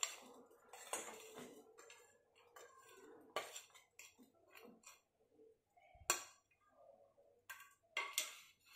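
Steel spoon scraping and clinking against a stainless steel plate and saucepan rim as grated jaggery is scraped off into the pan, with a few sharper clinks about six and eight seconds in.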